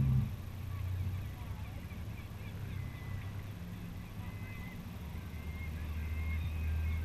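Gulls calling in short, repeated squawks over a low, steady rumble.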